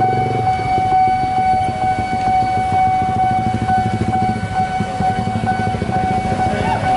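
Railway level-crossing warning siren sounding one steady high tone, over the running engines of vehicles passing close by.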